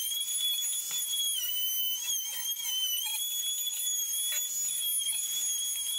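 Compact router with a 1/4-inch bearing-guided roundover bit running at speed, a steady high-pitched whine, as it rounds over the wooden edges. Its pitch dips briefly a couple of times as the bit takes load in the cut.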